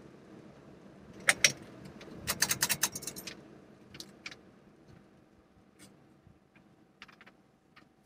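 Metal ball-chain pull chains on a Quorum Capri ceiling fan clicking and jangling: a sharp pair of clicks about a second in, a quick rattle of clicks around two and a half seconds, then scattered faint ticks.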